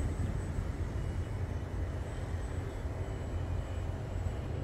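Steady low rumbling outdoor noise with a faint, thin, steady high tone above it.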